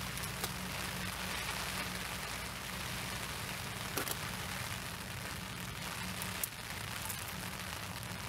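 Steady rain falling on a fishing umbrella: a constant hiss with a few sharper taps of single drops.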